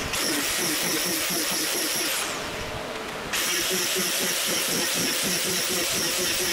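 Electric angle grinder running against a fiberglass trunk lid, cutting its ribs, with a steady high motor whine. About two seconds in the trigger is let off and the motor winds down, then it snaps back up to speed about a second later and runs on.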